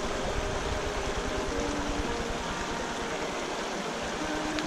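A shallow, rocky mountain creek running over stones: a steady rush of water with a low, fluttering rumble underneath.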